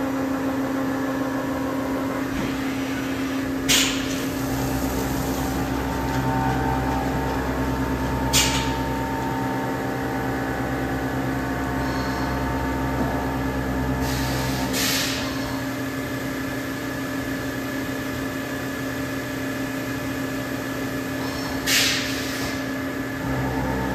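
Matsuura MC-800VFDC twin-spindle CNC machining center running a cycle: a steady mechanical hum, joined by a deeper drive hum from about four to fifteen seconds in as the twin rotary tables tilt and both spindles feed drills into the work. Four short hissing bursts stand out, about four, eight, fifteen and twenty-two seconds in.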